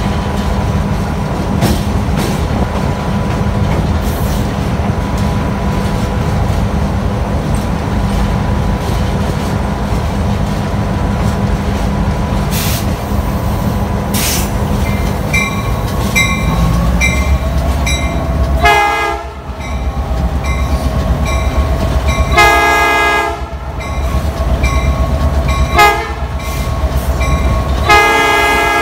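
Diesel locomotive engine running steadily under the cab platform while the train rolls. From about halfway a bell rings in even strokes, and near the end the air horn sounds four blasts, the third one short, in the long-long-short-long grade-crossing pattern.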